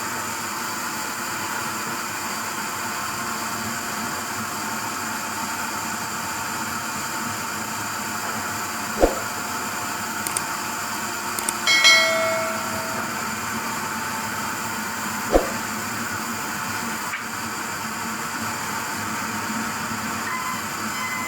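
Sawmill machinery running steadily, with two sharp knocks about nine and fifteen seconds in and a brief ringing clatter between them.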